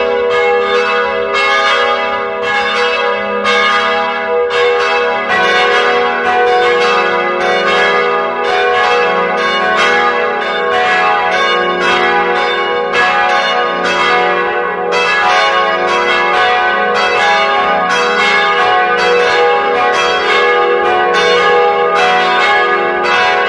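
Several church bells pealing together in a festive ringing, with rapid overlapping strikes and many ringing tones. The mix of lower bell pitches changes about five seconds in.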